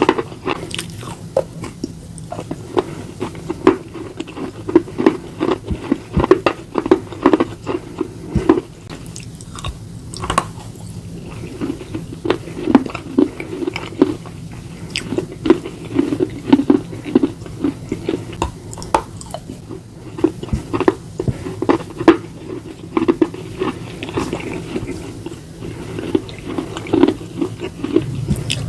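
Slate pieces and slate bar being bitten and chewed close to the microphone: dense sharp crunches over a steady chewing rhythm.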